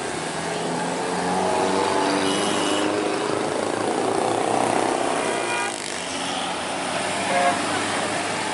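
Road traffic passing close by: motorcycle and car engines running and tyres on asphalt, with engine notes rising and falling as vehicles go past.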